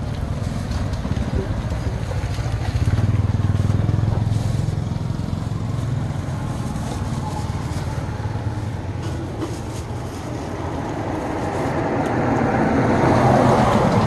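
Road traffic: motor vehicle engines running, with a steady low hum that grows louder near the end as a vehicle comes close.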